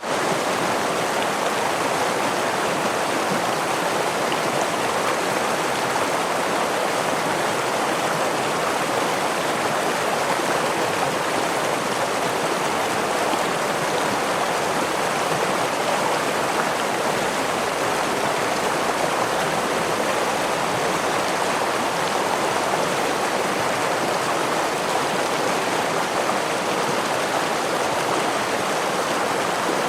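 Stream water flowing steadily, an even, unbroken wash of water noise.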